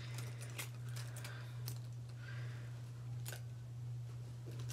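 Small metal clicks and light rattling of a key clasp and key ring being fiddled with by hand on a fabric bag, over a steady low hum.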